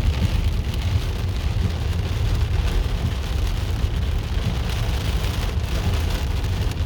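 Heavy, intense rain falling steadily, over a constant deep rumble.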